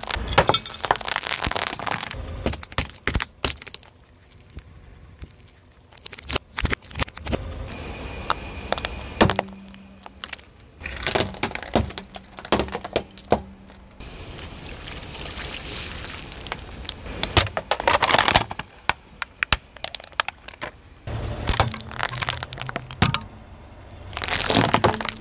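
A car tyre rolling over and crushing brittle plastic, glass and wooden objects: several separate runs of sharp cracks, snaps and crunches, with short quieter gaps between them. The loudest burst of cracking comes near the end, as a yellow spiral bulb breaks into shards.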